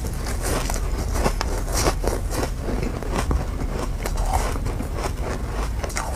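Chewing a mouthful of powdery frozen ice: a steady run of irregular soft crunches and crackles, several a second.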